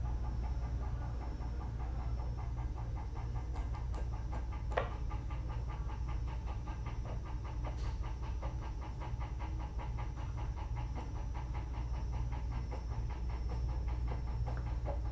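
Small electric motor slowly winding a string in faint, steady pulses over a low, steady hum. A few light clicks sound, the sharpest about five seconds in.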